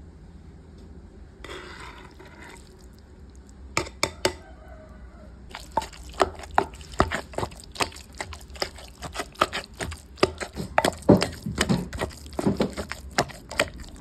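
Wooden pestle pounding cooked fish into wet chili paste in a mortar: a few knocks about four seconds in, then rapid repeated wet thuds, about three to four a second, from about five and a half seconds on.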